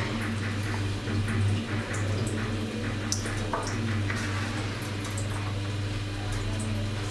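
A steady low hum with scattered faint clicks and rustles.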